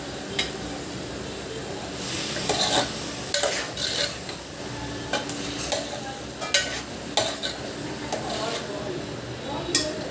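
Steel spoon scraping and clinking against a stainless-steel pan as keema stuffing with peas, garlic and green chilli is stirred, with irregular knocks about once a second over a steady sizzle of frying.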